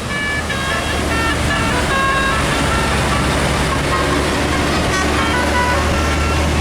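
Bus engine running with a steady low drone, with a faint tune of short high notes over it.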